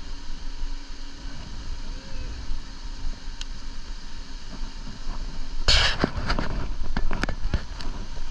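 Wind buffeting the microphone over the rolling of a mountain bike on hard sand, a steady low rumble. A little past halfway comes a loud burst of noise, then a quick string of sharp clicks and knocks.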